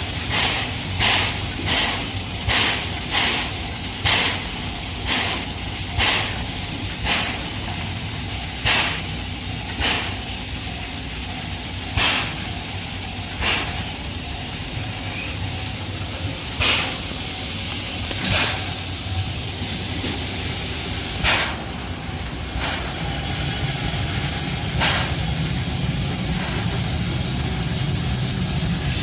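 C11 325, a C11 tank steam locomotive, standing with steam up: a steady hiss of steam with short sharp puffs about once a second, which space out and thin in the second half. A low rumble strengthens near the end.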